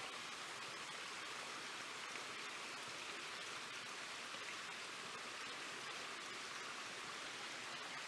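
A small creek's water running, heard as a faint, steady hiss with no other distinct sounds.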